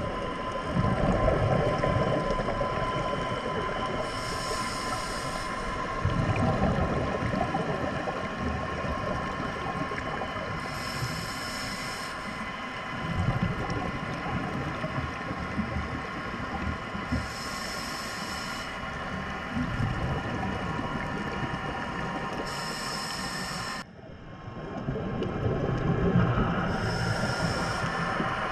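Underwater ambience through a camera housing: a steady mechanical hum with several faint steady tones over a low rumbling wash, and a high hiss that swells roughly every six seconds. The sound drops out sharply about three-quarters of the way through, then builds back up.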